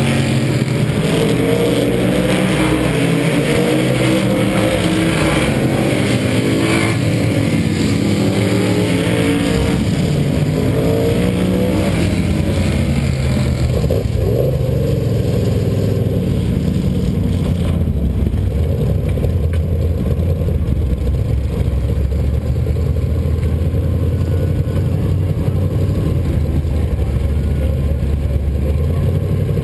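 Supermodified race car engines running on the oval, their pitch rising and falling over and over as they go past. About halfway through a steady low engine drone up close takes over.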